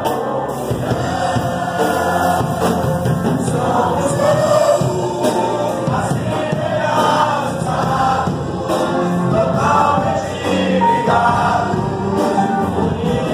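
Church congregation singing a gospel hymn together, with no break.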